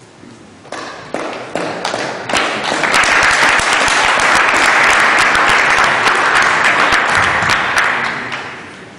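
Audience applauding in a large hall. The clapping builds over the first few seconds into a full round and dies away near the end.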